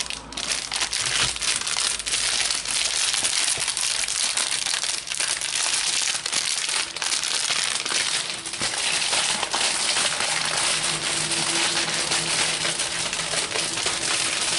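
Clear plastic wrapping sealing a trading-card collector pack crinkling and crackling almost without pause as hands pick and pull at it to break through the seal.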